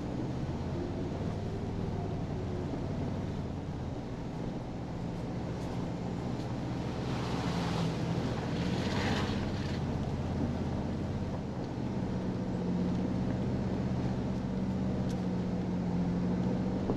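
2023 Toyota Tundra TRD Pro's twin-turbo V6 hybrid powertrain pulling the truck slowly along a dirt trail, heard from inside the cab as a steady low engine hum that steps up in pitch about twelve seconds in. A brief hiss comes about halfway through.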